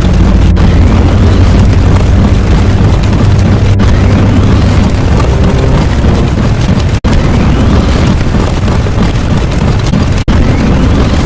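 Very loud, dense booming noise like an explosion sound effect, heaviest in the low end. It is broken by sudden short cuts roughly every three seconds, and faint rising whines sit over it.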